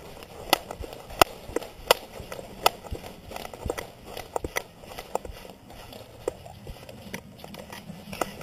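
A dog walking across a wooden floor, its claws and paws making sharp clicks and taps: a few loud clicks under a second apart in the first three seconds, then quieter, quicker taps.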